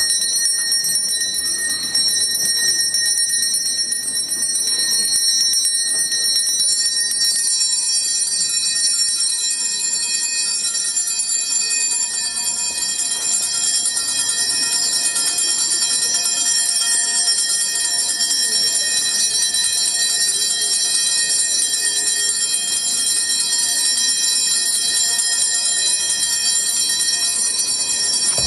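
Small altar hand bells ringing continuously in a steady, high-pitched jangle, as they are rung while the Blessed Sacrament is carried in procession at Benediction.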